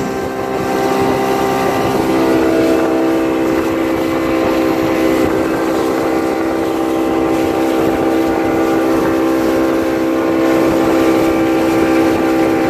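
Fishing boat's engine running steadily at speed, a loud, even drone over the rush of water along the hull.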